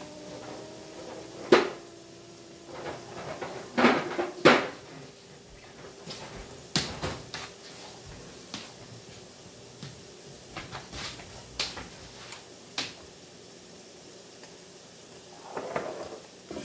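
Kitchen handling noises: scattered knocks and clicks like a cupboard or fridge door and things being set down, the loudest a few within the first five seconds. Near the end a soft rustle as eggs are laid on a cloth towel.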